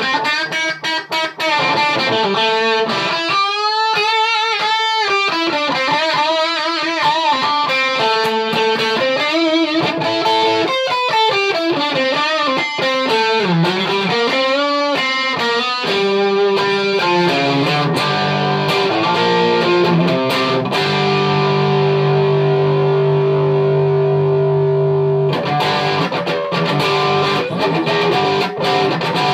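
Self-built Stratocaster electric guitar played solo: single-note lines with string bends and vibrato, then a chord left ringing for several seconds before more picking near the end.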